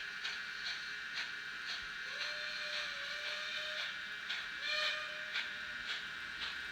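Fleischmann N-gauge Vectron electric locomotive model running with its DCC sound decoder: a steady electric hum with regular clicks about twice a second. Two held whistle-like tones sound, one about two seconds in and one about four and a half seconds in.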